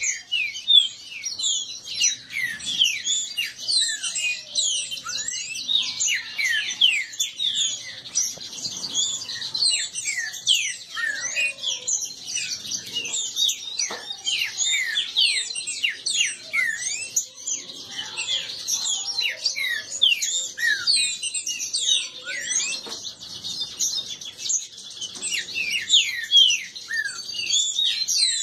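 Caged green-winged saltators (trinca-ferro) in a dense, unbroken racket of short high chirps and calls, many notes overlapping each second.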